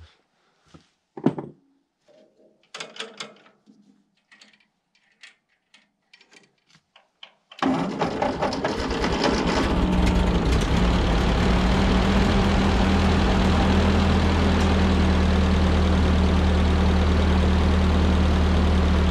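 A few faint clanks and clicks, then the 1946 Ford 2N tractor's four-cylinder flathead engine starts abruptly and settles into a steady idle. This is the engine running on a newly replaced head gasket.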